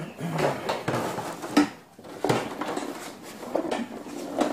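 Irregular sharp knocks and light clatters, about a dozen, such as handling noise or objects knocked about in a small room.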